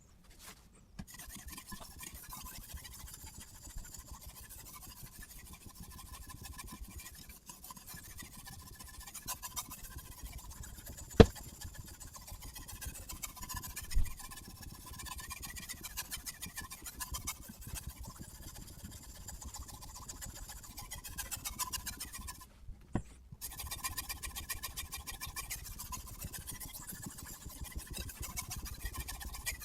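Sharpening stone on a guided knife sharpener scraping along a kitchen knife's edge in quick, repeated strokes. A sharp click sounds partway through, a duller knock follows a few seconds later, and the strokes stop briefly about three quarters of the way in.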